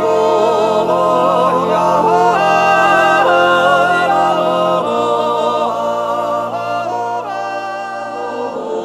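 A cappella Appenzell natural yodel (Naturjodel, a Zäuerli): a wordless melody leaping and bending above a chord held by other voices. The held chord moves lower about five seconds in.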